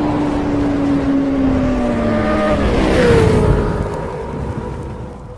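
Racing engine sound effect: a high-revving engine holds a steady note that sinks slowly, drops sharply in pitch as it passes by about three seconds in, then fades away.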